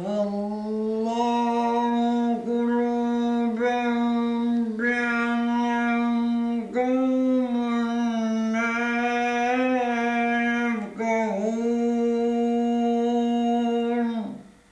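A man's voice chanting the Quran in slow melodic recitation, drawing out one long phrase on a steady high note with ornamented turns and a few brief breaks. It stops just before the end.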